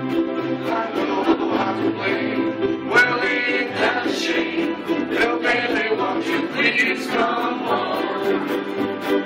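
A large group of ukuleles strummed together in rhythm, with many voices singing along.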